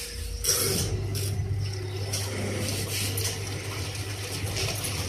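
Twin-tub washing machine's wash motor starting and running with a steady low hum as it churns the load, after its timer knob is turned for a short wash. The hum eases off near the end.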